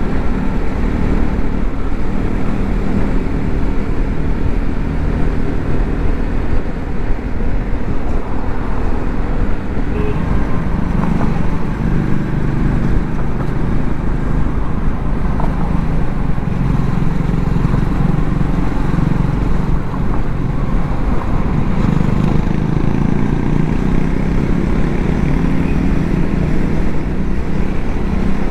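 Triumph Scrambler 400 X's single-cylinder engine running steadily at cruising speed, heard from the rider's seat, with wind and road noise rushing past the microphone.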